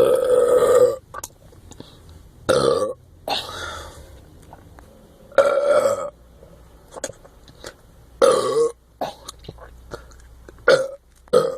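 A person burping again and again, about six burps in all. The first, right at the start, is the longest, and the last two come close together near the end.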